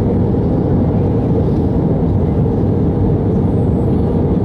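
Steady low rush of engine and airflow noise inside an Airbus A319's passenger cabin, unchanging during the descent toward landing.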